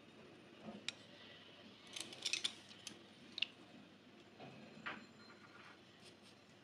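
Bamboo skewers and marinated chicken pieces handled in a glass bowl while the chicken is threaded onto the skewers: faint, sharp clicks and taps, a quick cluster of them about two seconds in and single ones here and there.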